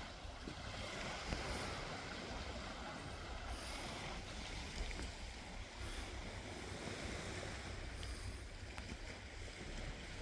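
Sea waves washing on the shore, a steady rushing noise, with wind rumbling on the microphone.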